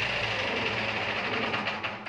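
Ship's diesel generator engine running steadily at the end of a test run after an oil and filter change, then shut down about one and a half seconds in, its beats slowing and fading as it runs down.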